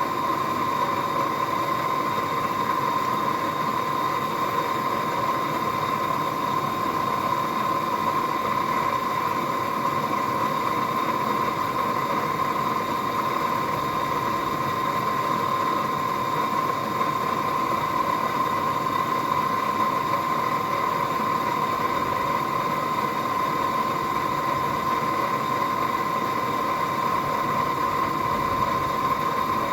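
A forge running steadily while mild steel heats in it: an even rushing noise with a constant high whine over it.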